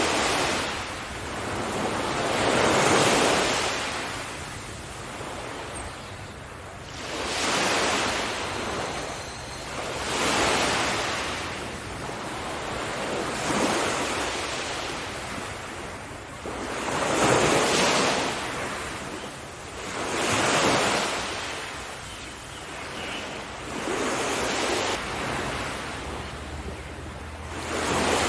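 Sea waves breaking and washing ashore, a rushing surf noise that swells and falls back about every three to four seconds.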